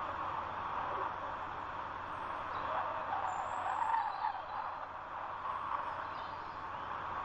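Wind blowing steadily in gusty swells, with a few faint bird chirps in the middle.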